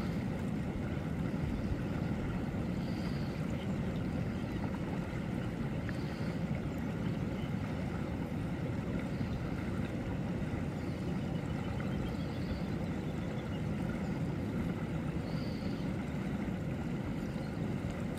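Steady low roar of ocean surf breaking on the beach, with faint short high chirps every few seconds.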